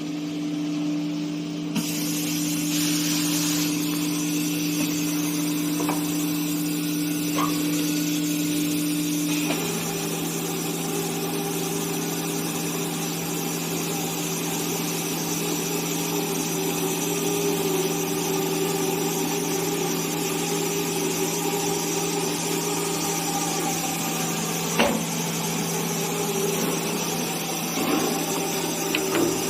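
ATC CNC nesting router running and cutting a wood panel: a steady machine whine under the hiss of the bit in the board. The whine changes pitch about ten seconds in, and there is one sharp click near the end.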